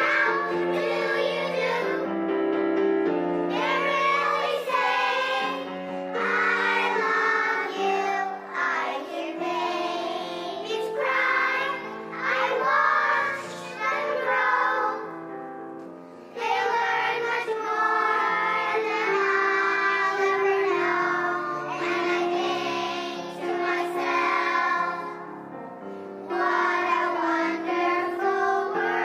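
A group of young children singing a song together over instrumental accompaniment. The singing drops away briefly about halfway through, then resumes.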